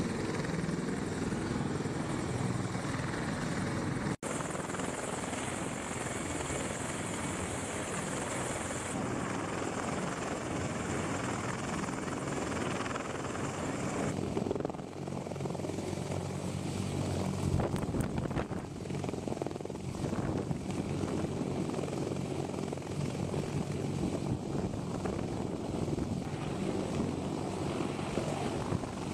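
CH-53 heavy-lift helicopter hovering low overhead: a dense, steady rush of rotor and turbine noise with rotor downwash. It breaks off for an instant about four seconds in, and its tone shifts about fourteen seconds in.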